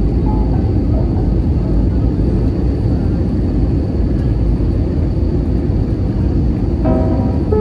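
Airbus A320 cabin noise heard from a window seat beside the engine: a steady, loud low rumble of jet engine and airflow. Music comes in near the end.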